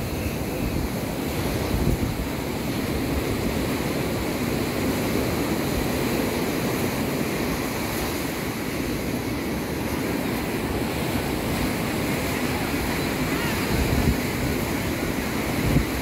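Ocean surf washing onto the beach in a steady rush, with wind buffeting the microphone.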